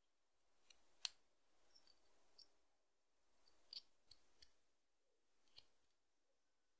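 Handmade whittling knife with a 40 mm blade taking short cuts into branch wood: quiet soft scraping with a series of small sharp clicks as the blade bites and shavings come away, the loudest click about a second in.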